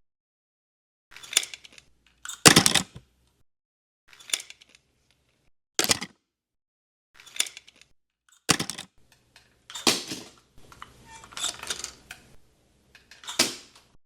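Dishes and cutlery clinking and clattering in a string of about nine short, separate knocks, with a longer scraping clatter near the end.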